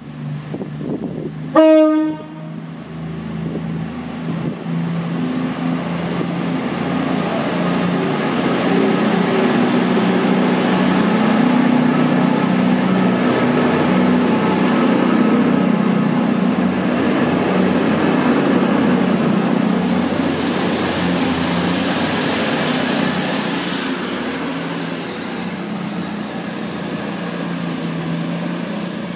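CrossCountry Voyager diesel multiple unit sounds one short blast of its horn, then draws alongside the platform. Its engines and wheels build to a steady rumble as the cars pass, and it fades slowly near the end.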